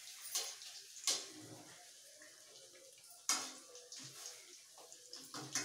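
Dahi bada fritters sizzling in hot oil in a kadhai, with a few sharp clinks and scrapes as a metal spoon turns them; the loudest clink comes about three seconds in.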